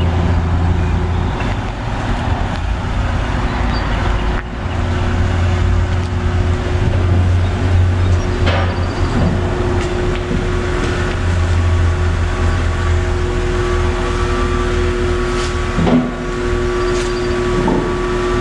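BMW 328i's 3.0-litre N52 inline-six idling with a steady low hum, with a single clunk about 16 seconds in.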